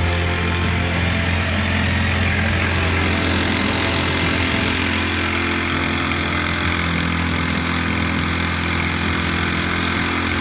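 An engine running steadily at an even speed: a low hum with a constant hiss over it.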